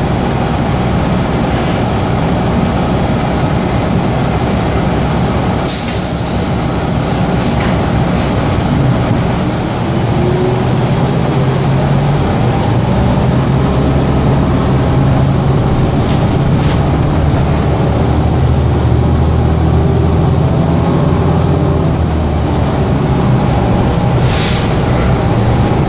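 Cabin sound inside a Gillig Advantage hybrid bus: a steady drivetrain and air-conditioning hum, with a sharp hiss of released air about six seconds in and another near the end. The low hum grows stronger from about ten seconds in as the bus pulls away.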